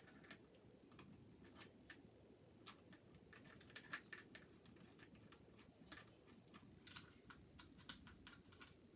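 Faint, irregular light clicks and taps of small hard objects, some in quick clusters, over quiet room tone.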